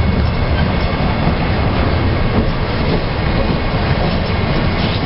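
Freight train cars rolling past at close range: a steady, loud noise of steel wheels running on the rails, heaviest in the low end.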